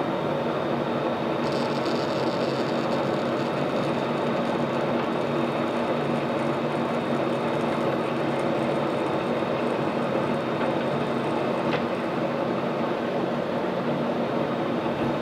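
Metal lathe running slowly under power on a threading pass, with the tool cutting an 18-threads-per-inch thread in brass: a steady geared hum throughout. A faint high hiss runs through most of the pass, and there is a single click near the end.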